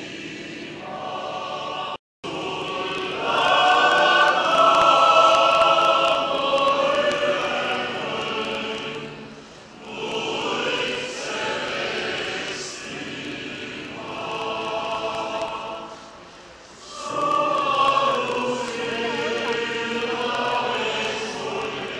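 Massed choir singing in long held phrases, with short breaks about nine and sixteen seconds in. The sound cuts out for an instant about two seconds in.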